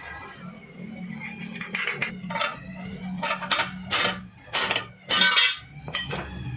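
Metal striking metal, about eight clanks and clinks with a ringing tail, the loudest near the end, over a low steady hum.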